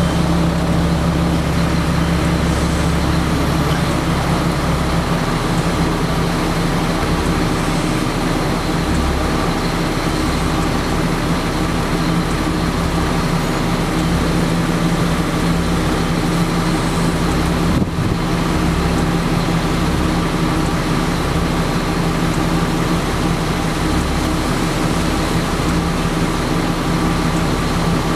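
Steady road traffic noise with a constant engine hum running under it.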